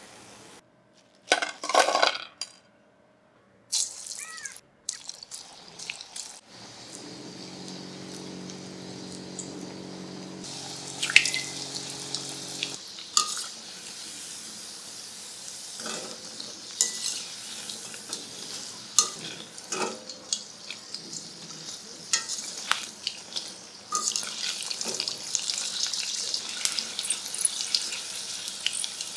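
Dal pakoras deep-frying in hot oil in a steel wok: a steady sizzle with many sharp crackles and pops, louder in the last few seconds. About two seconds in there is a clatter of a metal wire strainer against the wok.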